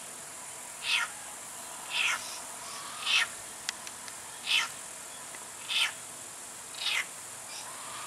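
Steady high insect drone, with a call repeated about once a second over it, each call a quick downward sweep.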